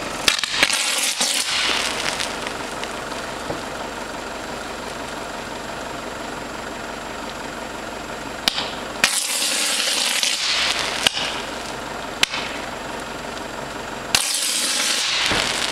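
230-volt short circuit in an old oil-filled cable on a utility pole, arcing and burning with a steady hissing crackle. It flares up into louder bursts of hiss about a second in, around nine seconds and near the end, with a few sharp pops and cracks between.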